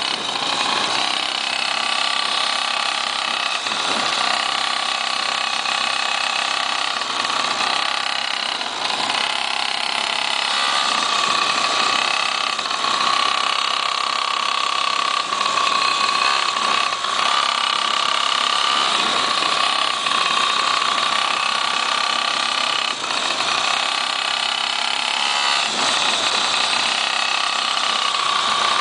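Small two-stroke engine of a pocket quad (mini ATV) running under way with a steady high whine, easing off briefly a few times as the throttle is let off.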